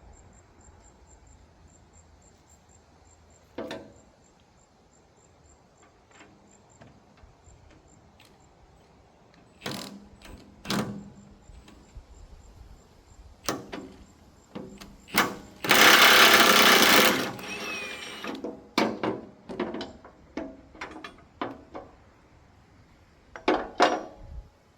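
Cordless half-inch impact wrench hammering for about a second and a half, spinning off a rotary mower's blade bolt. Around it are scattered sharp metal clanks and knocks.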